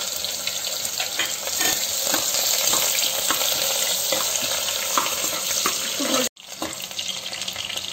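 Sliced onions and green chillies sizzling in hot mustard oil in a pressure cooker, with small pops and the scrape of a stirring spoon. The sound drops out abruptly for a moment about six seconds in and comes back a little quieter.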